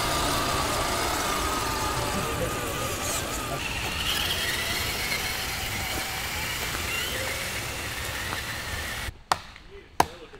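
A steady, noisy whir with a faint wavering whine runs for most of the time. It cuts off suddenly, and two sharp chopping strikes follow as a blade hacks at a piece of wood; these strikes are the loudest sounds.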